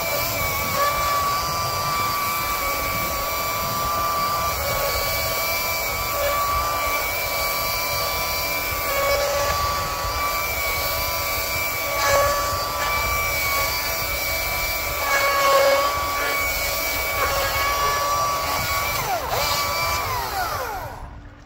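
A motorized power tool running steadily at speed with a high whine, then winding down in pitch and cutting out near the end.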